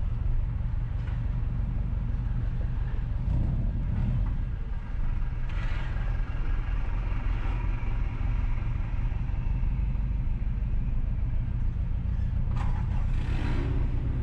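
Car driving slowly along a street: steady low engine and road rumble, with two brief louder swells of noise, about five seconds in and near the end.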